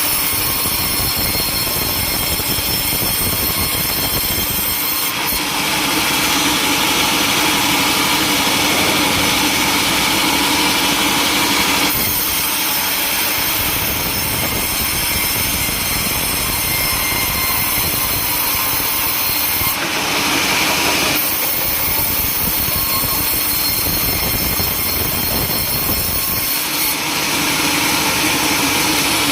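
Sawmill saw running and cutting through timber: a loud, steady machine noise that shifts in character every several seconds as the cut goes on.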